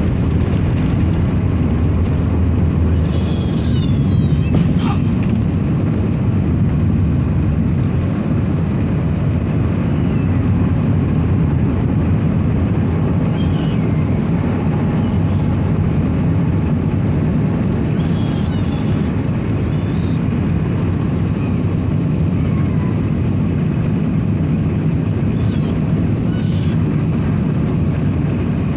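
Steady low rumble of engines and rushing air heard inside the cabin of an Emirates Airbus A380-800 airliner in flight or on its takeoff run, with a few faint, brief high squeaks over it.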